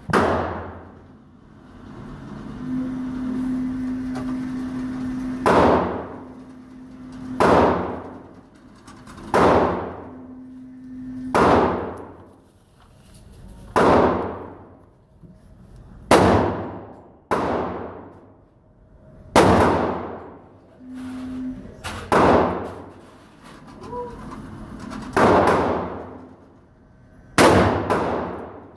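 Pistol shots cracking in an indoor shooting range, roughly one every two seconds, each followed by a long echoing tail. The electric target carrier's motor hums steadily from a couple of seconds in until about a third of the way through, and again briefly later.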